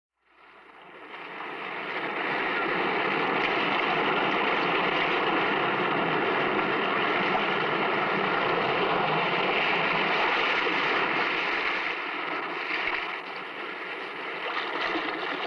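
Sea surf sound effect from an old radio broadcast: a steady rush of waves that fades in over about two seconds, eases a little near the end, then swells again.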